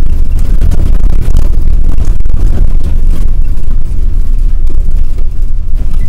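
City bus driving over a cobblestone street, heard from inside the cab: a loud, steady low rumble from the tyres on the setts, with constant rattles and jolts.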